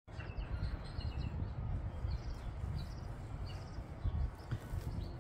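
Small birds chirping outside in short, repeated calls over a steady low rumble.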